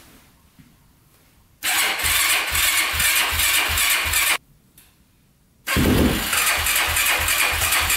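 2005 Yamaha YFZ450's single-cylinder four-stroke engine turned over on the electric starter in two bursts with a steady chug, each cut off abruptly. These are start attempts after the carburetor was cleaned and reset to stock fuel-screw settings. The first burst begins about a second and a half in and lasts close to three seconds; the second starts a little over a second after it ends.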